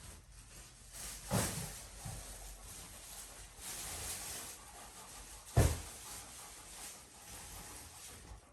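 Two dull thumps over faint rustling: one about a second and a half in, and a louder, sharper one past the middle.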